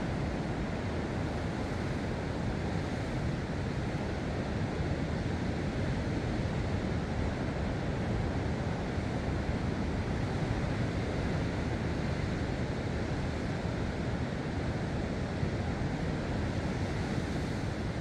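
Ocean surf washing steadily against a rocky coast, mixed with wind.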